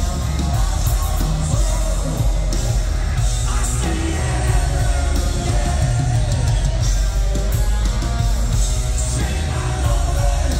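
Live hard rock band playing loud, with electric guitar and a male lead vocalist singing into a microphone, heard from the audience in a concert hall.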